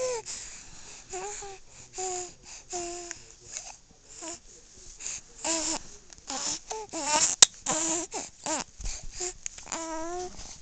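Young infant making short, repeated fussing vocalizations, between cooing and whimpering, each a brief squeaky sound that bends in pitch. A single sharp click sounds a little past the middle.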